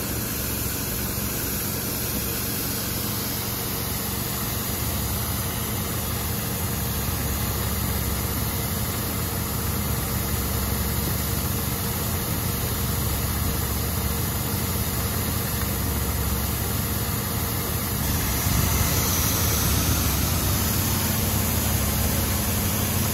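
Sweet potato washing and polishing machine running: its inverter-driven brush rollers turning with a steady hum while the row of water nozzles sprays with a constant hiss. A little louder in the low end near the end.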